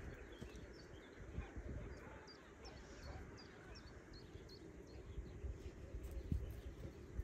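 Small birds chirping in the background, a run of short high chirps in the middle, over a low, uneven rumbling noise.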